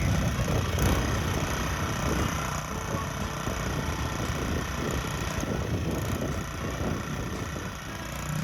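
Small petrol engine of a walk-behind cultivator running steadily while tilling soil.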